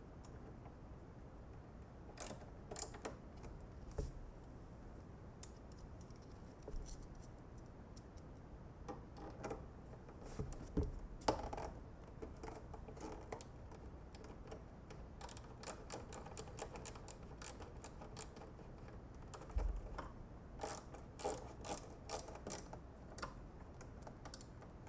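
Light clicks and taps of hand tools and screws as the bike's plastic covers are screwed back on, with a few runs of rapid clicking and the odd low knock.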